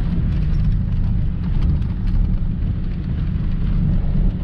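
Pickup truck driving on a bumpy dirt road, heard from inside the cab: a steady low rumble of engine and tyres, with scattered small rattles and knocks.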